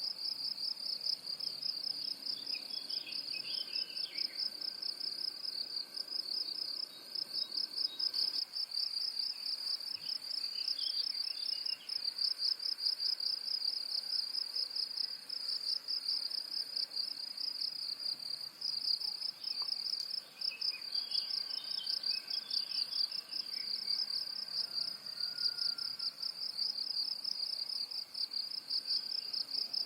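Insects trilling steadily, a continuous high, rapidly pulsing chorus, with faint bird chirps breaking in a few times in the background.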